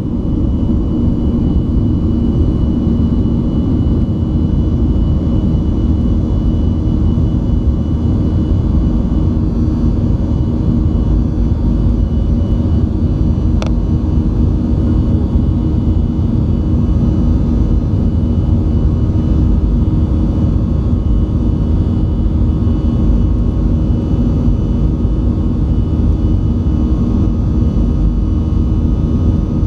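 Boeing 737-500's CFM56-3 turbofan engines at takeoff power, heard inside the cabin beside the wing through lift-off and the initial climb: a steady, loud engine noise with a low rumble and a few steady tones.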